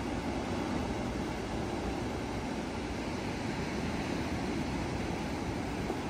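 Ocean surf washing over and around coastal rocks: a steady rushing noise with no single crash standing out.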